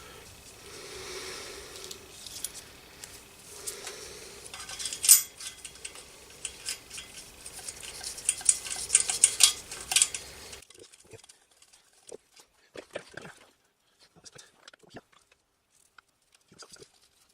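Small metal parts and tools of an opened airbrush compressor being handled: scattered light metallic clinks and clicks, the sharpest about five seconds in and a quick run of them near the end of the first ten seconds. The background hiss cuts off suddenly, leaving only sparse faint clicks.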